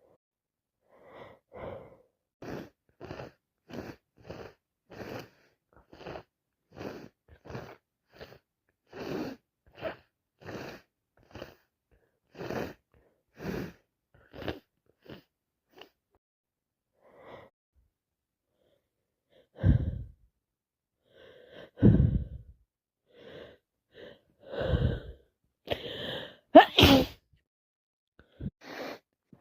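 A person sick with a cold: a long run of short breathy sounds, about two a second, then after a pause several loud sneezes, the loudest and sharpest near the end.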